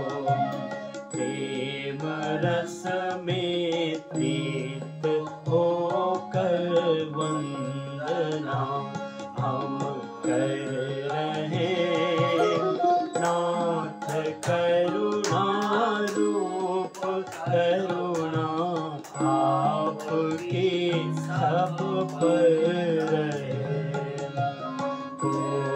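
Indian devotional music: a voice sings a flowing, wavering melody over tabla strokes.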